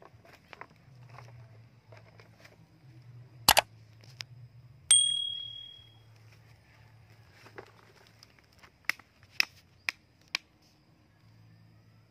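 A loud knock, then a sharp strike with a brief high ringing that fades. Near the end come four short, evenly spaced wooden knocks about two a second: a stick tapping on a block of wood.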